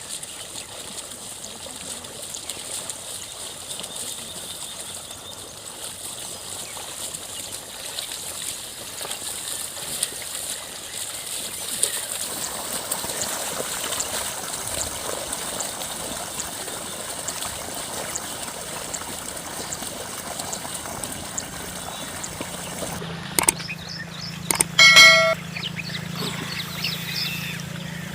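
Wet mud and water sloshing and trickling steadily as bullocks drag a plough through a flooded paddy field. About 25 seconds in, a short, loud, high-pitched call or tone cuts in once.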